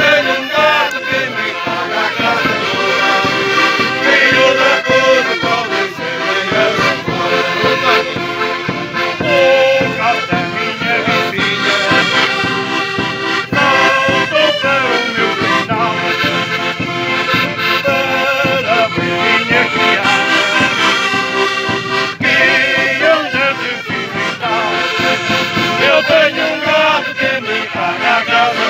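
Portuguese folk music: two diatonic button accordions playing a lively tune over steady beats of a large bass drum struck with a beater. A group of voices sings along.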